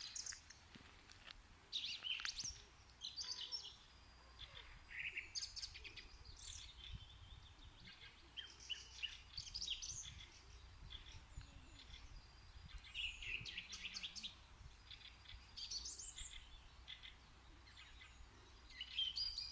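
Birds chirping and calling: short, high notes and quick trills come in clusters every second or two, often overlapping. A low, steady rumble runs underneath.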